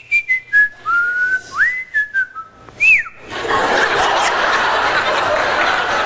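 A person whistling a short run of gliding notes that rise and fall, with a few sharp clicks, for about three seconds. Then an audience breaks into laughter and applause that carries on steadily.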